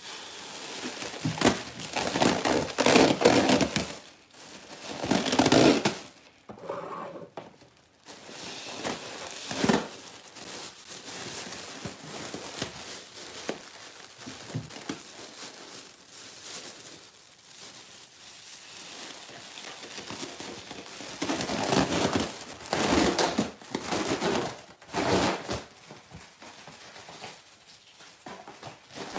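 Thin plastic bag crinkling and rustling in repeated bursts as it is handled and played with, the loudest bursts in the first six seconds and again past the twenty-second mark.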